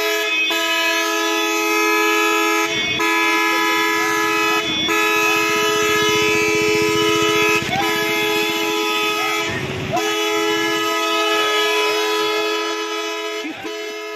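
A vehicle horn held down almost without pause: a steady blare of two notes at a fixed pitch, broken by about six short knocks.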